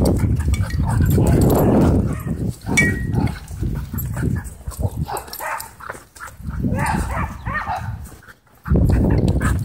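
Dogs vocalizing during rough play, with a brief high squeak about three seconds in, over a loud low rumble that swells and drops away.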